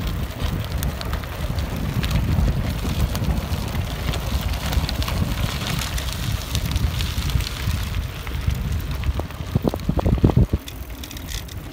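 Wind buffeting the microphone of a camera carried on a moving bicycle, over the crackle of tyres rolling on a rough dirt road. A few louder jolts come about ten seconds in, after which it eases slightly.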